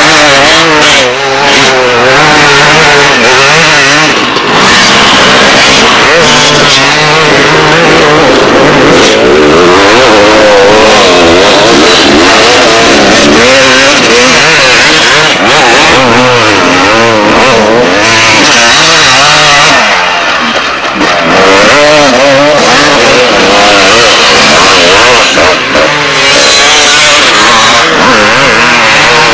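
Two-stroke motocross bike engine revving hard and unevenly, its pitch rising and falling repeatedly as the throttle is worked on sand. The level dips briefly about two-thirds of the way through before the engine picks up again.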